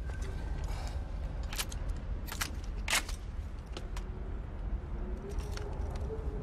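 Sharp metallic clicks and clacks of guns being handled and readied, over a steady low rumble. From about four seconds in, a faint wavering tone rises underneath.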